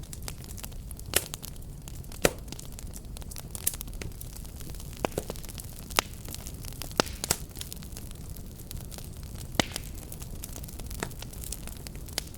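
Wood fire burning steadily with a low roar, crackling and popping with sharp snaps at irregular intervals, a few much louder than the rest.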